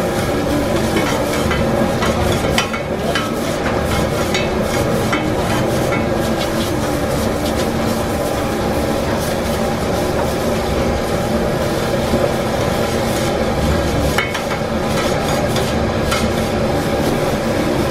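Two metal spatulas scraping and tossing noodles on a flat griddle, with scattered sharp clicks of metal on metal over a light sizzle and a steady background roar.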